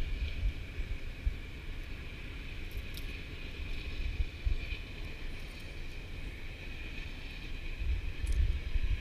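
Wind buffeting a GoPro's microphone as a low, uneven rumble, with a faint steady high tone and a couple of faint clicks.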